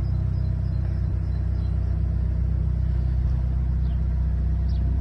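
Narrowboat's diesel engine running steadily under way, a deep, even rumble.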